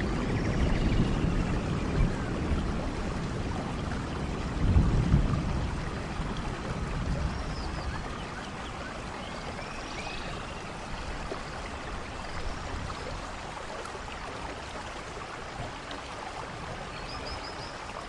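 Rain-and-waterfall nature ambience: a steady rush of falling water with birds chirping now and then. A low rumble of thunder swells about five seconds in.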